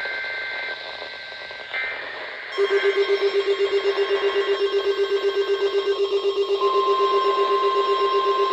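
Weather radio alerting: a rapid pulsing alarm beep starts about two and a half seconds in over radio hiss. The steady 1050 Hz NOAA Weather Radio warning alarm tone joins it about four seconds later, as in a weekly test of the warning alarm.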